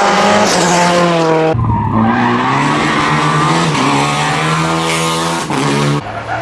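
Rally car engines at hard throttle, the revs rising and falling through the gears, with tyre and skidding noise. The sound breaks off abruptly and changes about a second and a half in, and again near the end.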